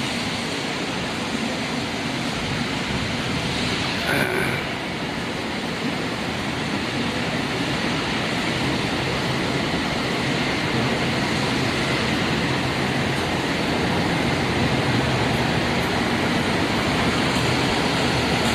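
Steady, loud industrial workshop din: dense machinery and ventilation noise filling the heavy-machinery shop, with a brief squeal about four seconds in.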